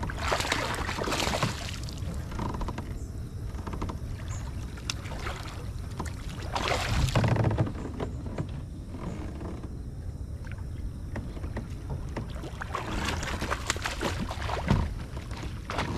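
Water splashing beside a kayak as a hooked bass thrashes at the surface and is netted, coming in three louder noisy bursts over a steady low rumble.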